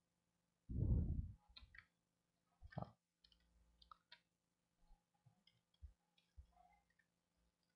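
Computer mouse and keyboard clicks, short and scattered, as the instructor selects and types a value into the software. A louder low muffled thump on the microphone about a second in, and a shorter one near three seconds.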